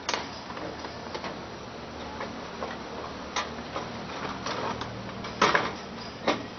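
Irregular clicks and knocks of an electric fan's cover being taken off, with the loudest knocks about five and a half seconds in and another just after six seconds.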